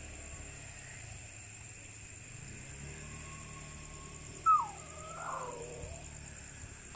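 A single animal call about four and a half seconds in. It starts suddenly and loudly, slides down in pitch and wavers for about a second and a half, led in by a faint thin whistle. Under it runs a steady hiss.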